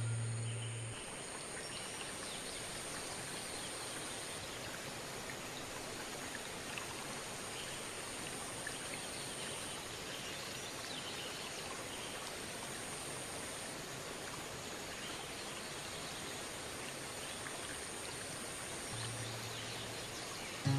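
Steady outdoor background noise, an even hiss, with a thin high steady tone that drops out and comes back several times. Background music fades out about a second in.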